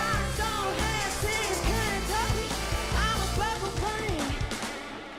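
Live country-pop performance: a female singer's melismatic closing line over a full band with a steady bass. The band thins out and the music fades near the end as the song finishes.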